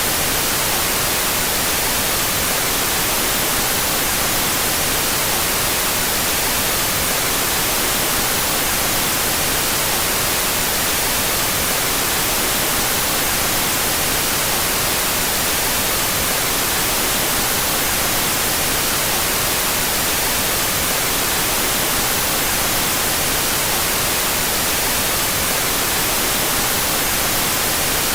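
Steady generated white noise, an even hiss with no change in level, its left and right channels set out of phase.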